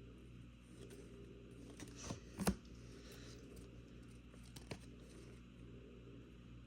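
Faint handling of a trading-card pack: a few short crinkling, tearing sounds of the wrapper about two seconds in, the loudest at about two and a half seconds, and one more brief tick near five seconds.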